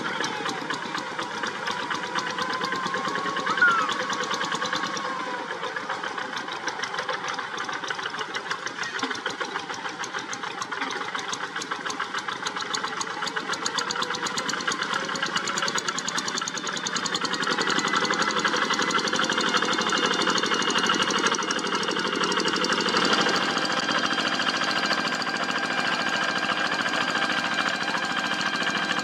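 Single-cylinder diesel engine of a walk-behind two-wheel tractor running steadily with a fast, even knocking beat, working as it ploughs a rice field. It gets somewhat louder a little past the middle.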